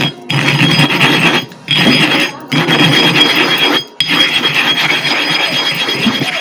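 Gritty rubbing and scraping strokes of a flat piece worked across the surface of a sharpening stone with sand, to flatten it. Four long strokes with short breaks between them.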